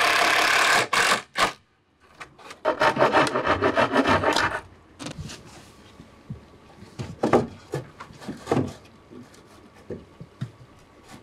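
Wood being hand-sawn: two bursts of rapid rasping strokes, then a few scattered knocks and taps of wood.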